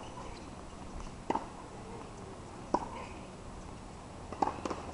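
Tennis balls struck by rackets and bouncing on a hard court during a rally: sharp pops about every second and a half, with two close together near the end.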